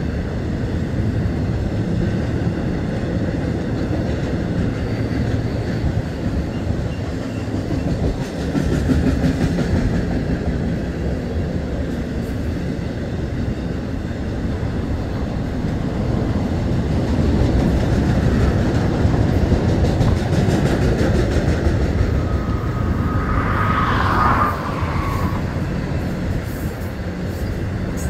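Double-stack intermodal freight cars rolling past: a steady rumble of steel wheels on rail with some clickety-clack. A brief high squeal comes near the end.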